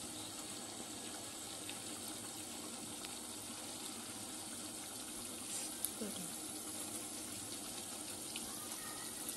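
Creamy paneer gravy simmering in a non-stick pan, a steady bubbling hiss.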